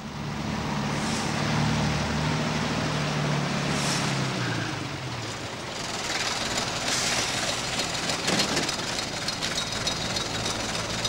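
A vehicle engine running with a steady low drone that falls away about five seconds in, followed by a rushing hiss. The recording is a noisy old film soundtrack transferred from VHS.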